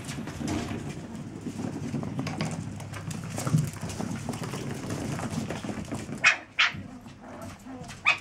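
Chihuahua puppies growling at play, then two short sharp yips about six seconds in and another near the end.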